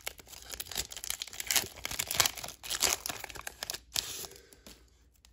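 Foil wrapper of a Pokémon trading-card booster pack being torn open and crinkled in the hands, an irregular crackling rustle that dies down near the end.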